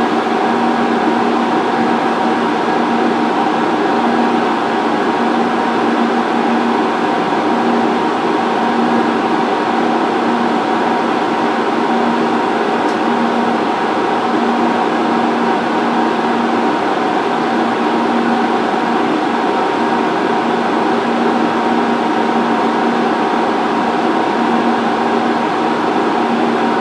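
Cooling fans of a 2 kW LiPo discharger running flat out, a constant hum with steady tones, while the rig pulls 120 amps from a 4S 4000 mAh pack in a 30C discharge test.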